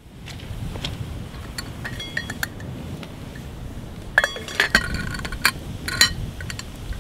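Metal lid of a camp pot of cowboy coffee clinking and rattling as it is handled with a chain pot-lifter over the fire, to check whether the coffee has come to a boil. A few light clicks come first, then a run of ringing clinks about four to six seconds in, over a low rumble.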